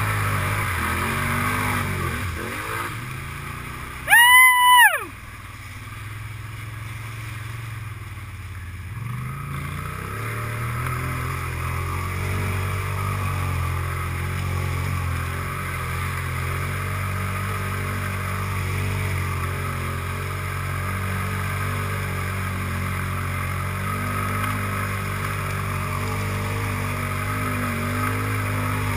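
ATV engine running steadily as the quad wades through a muddy pond, with the sound of churned water. About four seconds in, a loud, short high-pitched tone rises and falls in pitch for under a second.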